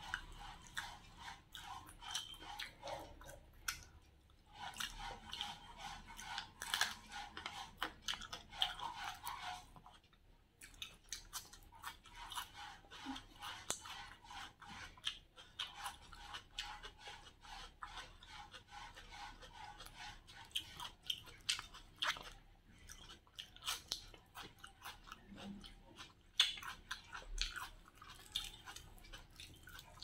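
Close-up chewing and mouth sounds of a person eating grilled chicken: dense, irregular wet clicks and small crunches, with short pauses about four and ten seconds in.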